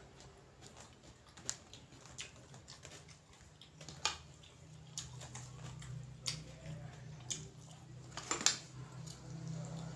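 Eating at a table: scattered light clicks and taps of fingers and a spoon against bowls and a plastic tray, a cluster of them near the end, over a low steady hum.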